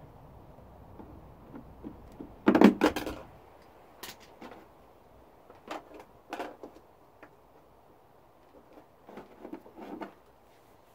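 Workshop handling noises: a loud clatter of knocks and rattles about two and a half seconds in, then scattered knocks and clicks, like parts or tools being handled.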